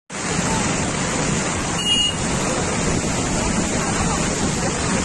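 Flash-flood torrent rushing past: a steady, dense noise of fast muddy water. A brief high tone sounds about two seconds in.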